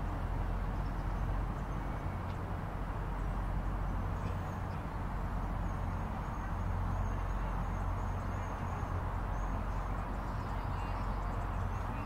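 Outdoor park ambience: a steady low rumble under an even hiss, with a thin, broken high tone coming and going from about four seconds in.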